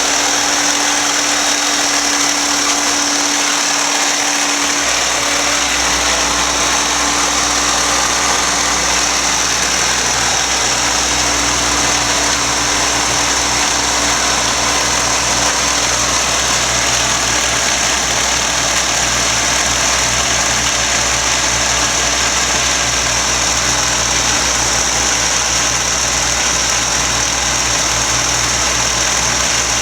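Hoover Concept One Power Drive upright vacuum cleaner running steadily with a loud, even motor whine and airflow hiss; a deeper rumble comes in about five seconds in.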